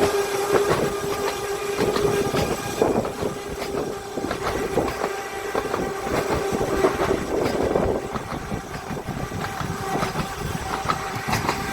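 Electric tram running on its narrow-gauge track, with the wheels clattering and knocking over the rails and a steady whine that fades out and comes back a few times.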